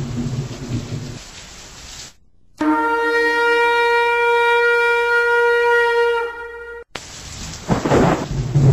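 Thunder rumbling over rain fades out. After a brief silence, a single long horn blast holds one steady note for about four seconds. Then thunder and rain come back in near the end.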